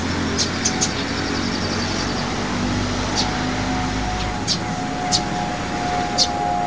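Distant city traffic as a steady rumble and hiss, with short high chirps now and then and a faint held tone in the second half.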